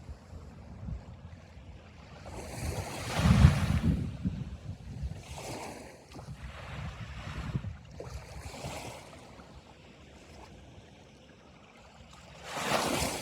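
Sea waves breaking and washing up the beach in a series of swells, the loudest about three to four seconds in and another near the end, with some wind on the microphone.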